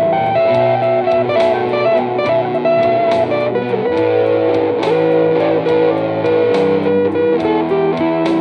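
Telecaster-style electric guitar played through a small combo amp: a slow blues line of picked single notes over held low bass notes.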